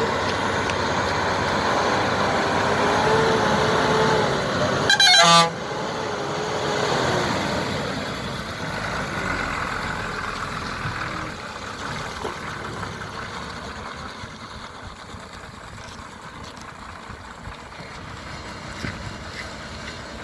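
Heavy diesel engine running, its pitch wavering up and down. A short, loud horn blast comes about five seconds in. The engine sound then fades away.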